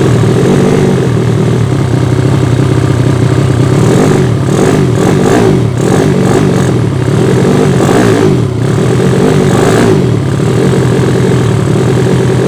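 Single-cylinder Yamaha Vega ZR motorcycle engine, swapped to a 200cc Mio cylinder, running loud, its speed dipping and picking up a couple of times in the middle. The carburettor is not yet set right and the engine is running lean.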